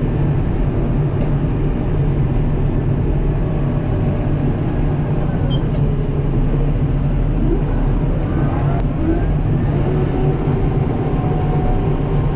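Kubota M7060 tractor's diesel engine running steadily, a continuous low drone, with a couple of faint clicks about halfway through.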